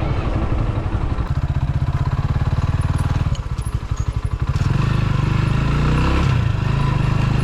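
Rusi Classic motorcycle engine running at low revs with an even, rapid beat, easing off briefly about three and a half seconds in, then louder, its note rising as the bike accelerates away.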